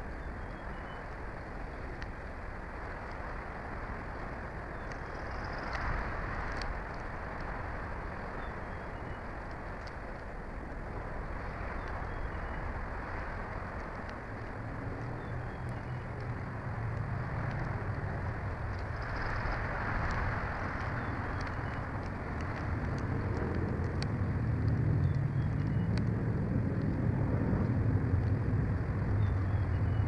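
Steady outdoor hiss from an open-air microphone. From about halfway, a low distant engine drone builds and grows louder toward the end.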